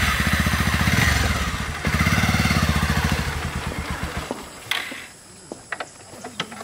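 Motorcycle engine running in a rapid, even pulsing beat, breaking off for a moment just under two seconds in, then picking up again and dying away about four seconds in. A few light clicks follow.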